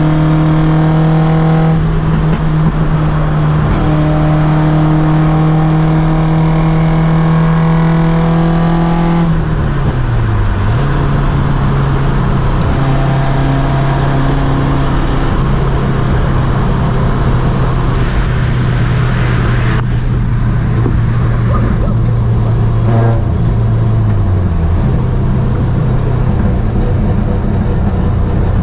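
Toyota 4A-GE twin-cam four-cylinder with side-draft carburetors, running loud and held at steady high revs. About ten seconds in the revs drop and settle at a slightly lower steady speed, with brief dips about 23 seconds in and again near the end.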